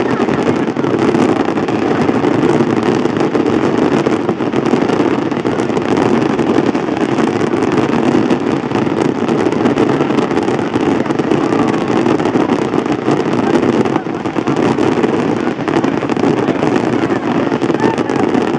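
A dense fireworks barrage: a loud, steady wall of crackling from many low shells and crackling stars bursting at once.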